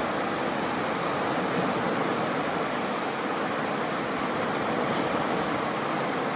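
Small ocean waves washing onto a sandy beach: a steady, even rush of surf with no single breaker standing out.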